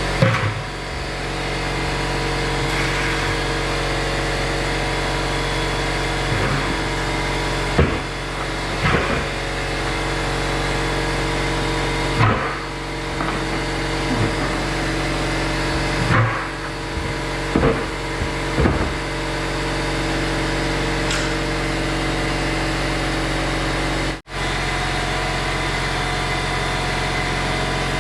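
Air compressor running steadily while a tractor tire is inflated, with several short louder bursts along the way and a brief dropout near the end.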